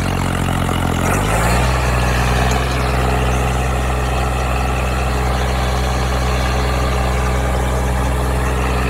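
Sonalika 35 DI tractor's diesel engine running under load as it pulls a disc harrow; the engine note shifts about a second and a half in, then holds steady.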